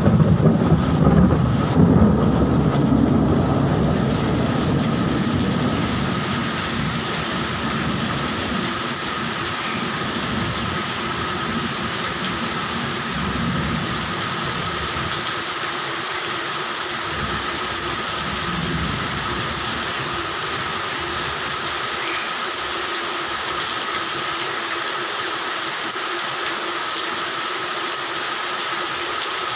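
Steady rain with a loud roll of thunder right at the start that rumbles away over several seconds, then fainter rumbles of thunder about 13 and 18 seconds in.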